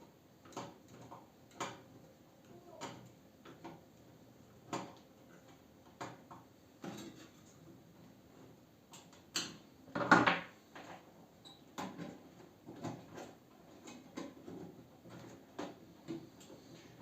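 Irregular light clicks and knocks of parts and tools being handled while a microwave oven is worked on, with a louder clatter about ten seconds in.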